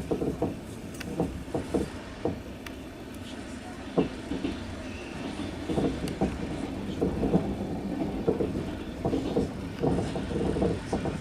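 Passenger train wheels clacking over the rails, with a steady rumble and many irregular knocks, heard from inside the carriage.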